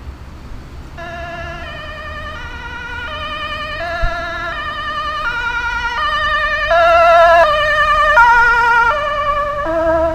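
Dutch ambulance's two-tone siren, switching between a high and a low note about every 0.7 seconds. It comes in about a second in and grows louder as the ambulance approaches, loudest around seven to nine seconds in as it passes. A low rumble of traffic runs underneath.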